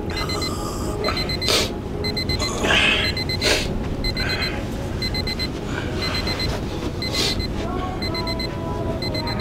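Digital alarm clock beeping in quick sets of four short high beeps, repeating about once a second, with a few brief rustles of bedding.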